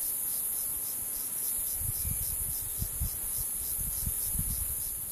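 Steady, high-pitched chorus of insects such as crickets or cicadas, pulsing evenly several times a second, with a few soft low thumps.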